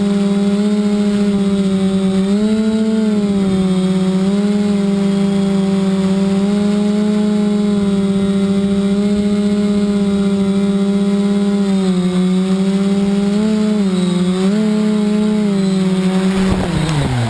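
Electric motors and propellers of a 580 mm FPV multirotor drone humming at a steady pitch, with small rises and dips as the throttle shifts. Near the end the pitch falls quickly and the sound dies away as the motors spin down.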